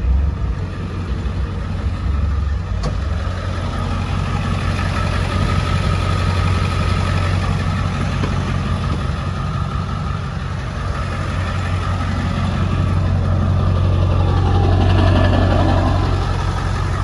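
Ford 7.3-litre Power Stroke turbo-diesel V8, fitted with an aftermarket full exhaust, idling with a steady low drone. There is a brief swell in the sound about fourteen seconds in.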